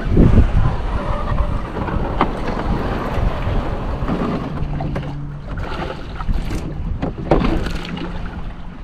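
Wind buffeting the microphone on an open canoe, a steady rumbling noise, with a few sharp clicks and knocks scattered through it and a brief low hum about halfway.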